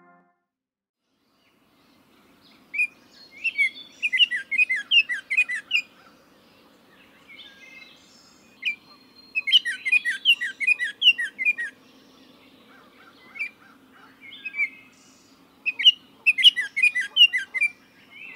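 A songbird singing three phrases of quick, high chirping notes several seconds apart, over a faint low hum.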